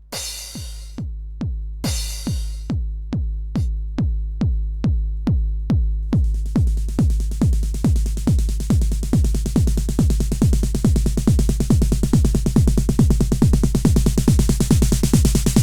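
TR-909 clone drum machine, built from Synthage/MIDIbox PCBs, playing a four-on-the-floor kick pattern at about two kicks a second. There is a cymbal crash at the start and another about two seconds in. About six seconds in a steady hiss of hi-hats or cymbals joins and grows louder towards the end.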